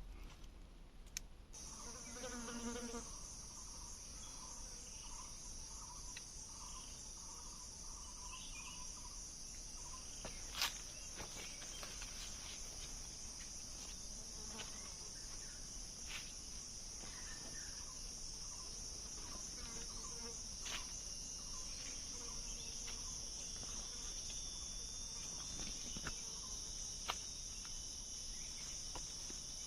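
Steady, high-pitched insect chorus that comes in about a second and a half in and holds unbroken, with a series of short repeated calls in the first ten seconds and a few sharp clicks, the loudest about ten seconds in.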